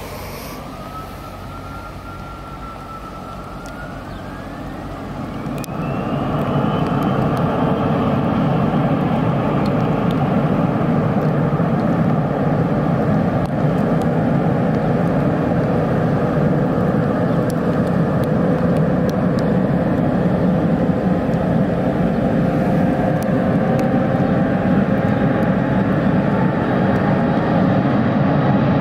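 Embraer 170's twin General Electric CF34 turbofans spooling up to takeoff thrust, a whine climbing in pitch over the first several seconds as the engine noise grows loud. It then holds steady and loud through the takeoff roll to lift-off.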